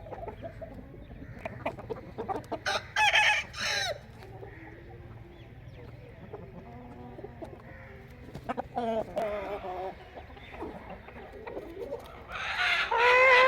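Aseel roosters crowing: a crow about three seconds in, a shorter call around nine seconds, and the loudest crow starting near the end.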